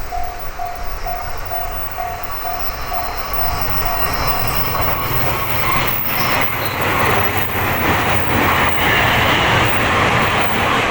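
Japanese level-crossing warning bell ringing about three times a second. From about five seconds in, an electric train passes close by; its rush and the clicks of its wheels over rail joints grow loud, peak near the end and cover the bell.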